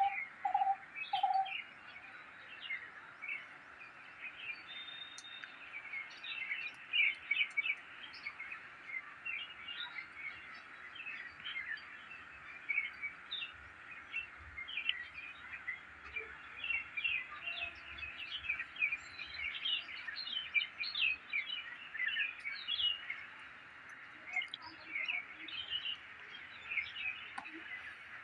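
Many birds chirping at once: a dense chorus of short, high chirps over a steady hiss, with a short run of lower repeated notes at the very start.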